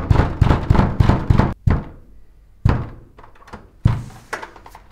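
A fist pounding on a hotel room door: a fast run of heavy knocks, about seven a second, that stops after about a second and a half, followed by two single loud thumps about a second apart and a few faint taps near the end.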